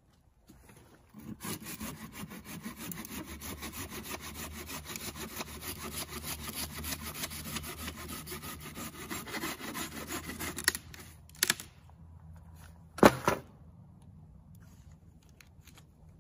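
Hand saw cutting through the splintered wood of a broken tree trunk in quick, even back-and-forth strokes that stop a little over ten seconds in. Two short, sharp knocks follow near the end, the second the loudest.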